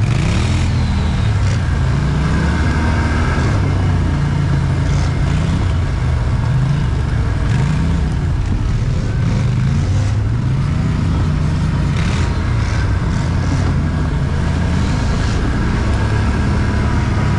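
ATV engine running on a trail ride, its note rising and falling every couple of seconds as the throttle opens and closes.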